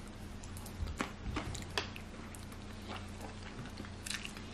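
Close-miked eating sounds from fried chicken and black bean noodles: scattered short wet clicks and smacks of chewing, over a low steady electrical hum.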